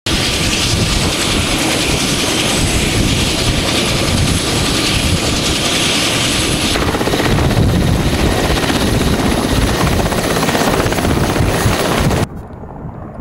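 Mi-8-family military helicopter running on the ground with its main rotor turning: a loud, steady din of its twin turboshaft engines and rotor. It cuts off abruptly shortly before the end.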